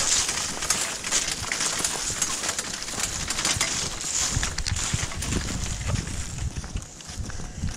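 Footsteps crunching on dry leaves and gravel, mixed with the rattle and crunch of a metal deer cart loaded with treestands as it is pulled along the trail: a steady run of irregular clicks and crunches.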